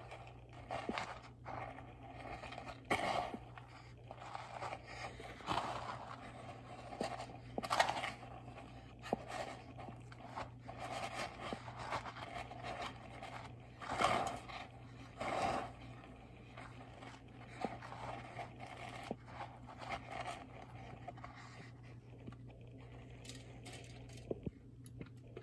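Hands pressing and rolling biscuit-dough-wrapped hot dogs in dry panko breadcrumbs in a shallow pan: irregular crunching and scraping. A steady low hum runs underneath, and the crunching eases off near the end.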